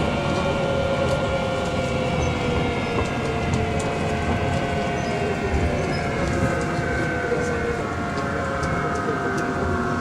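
Kanazawa Seaside Line 1000-series train (trainset 1011) running, its traction motors giving the jet-like whine that marks this set out as an abnormally noisy car. Several whining tones fall slowly in pitch as the train slows, over steady running rumble.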